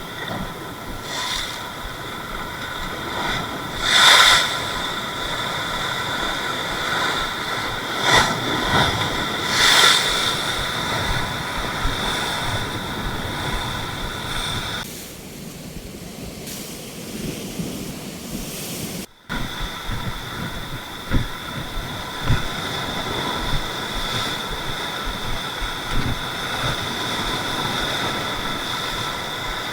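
Surf washing against rocks with wind buffeting the microphone, swelling louder twice; a steady high whine runs underneath.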